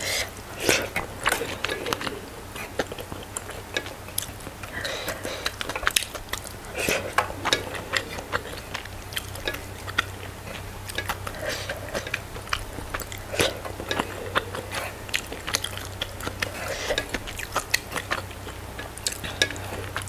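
Close-miked mouth sounds of a person eating rice and goat curry by hand: chewing with frequent wet lip smacks and clicks. A steady low hum runs underneath.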